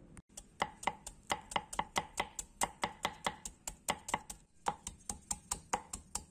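Broad kitchen knife chopping a hard galangal rhizome on a wooden chopping board. The blade knocks on the board in an even rhythm of about four strokes a second, starting about half a second in.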